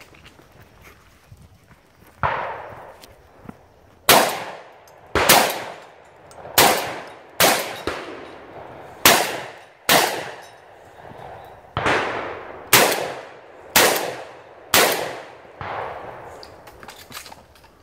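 A shotgun fired in quick succession, about a dozen loud shots spaced roughly a second apart with brief pauses, each with a short ringing tail.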